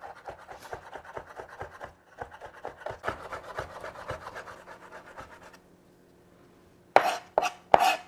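Chef's knife rapidly chopping shiitake mushrooms on a wooden cutting board, quick even strokes. The chopping stops briefly near the end, then there are a few louder separate knocks.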